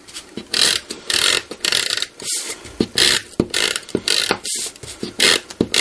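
Tape runner laying adhesive onto a paper card piece in a series of short strokes, roughly two a second.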